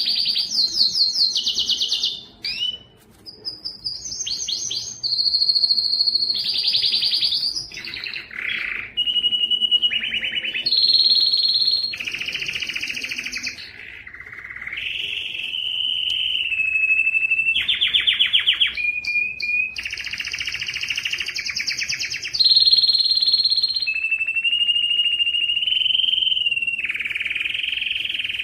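Domestic canary singing a long, unbroken song. Fast rattling trills and rolls alternate with long, steady, high whistled notes, and the pitch shifts from one phrase to the next.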